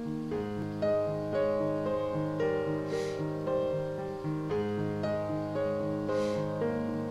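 Gentle instrumental background music led by piano, slow repeating notes over a held low tone, with a soft hiss swelling about every three seconds.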